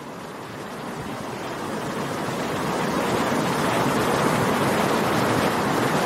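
Shallow stream rushing over rocks in small rapids, a steady rush of water that grows gradually louder.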